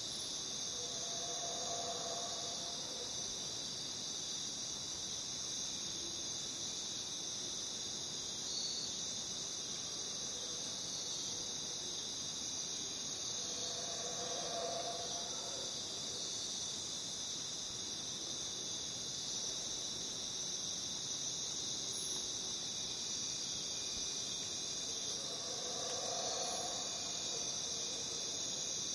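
Dense chorus of jungle crickets: a steady, high-pitched shrill with no break. A fainter, lower sound swells and fades three times, roughly twelve seconds apart.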